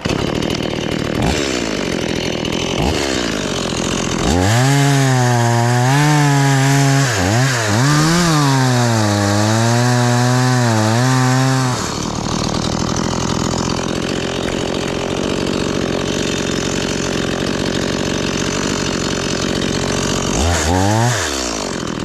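Two-stroke chainsaw idling, then held at full throttle for about seven seconds while cutting through a coconut palm trunk, its pitch wavering under the load, before dropping back to idle. A short rev near the end.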